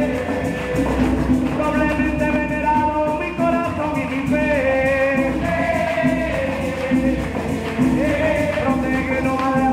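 A parranda group's live Christmas music: voices singing a melody over string accompaniment and steady rhythmic percussion.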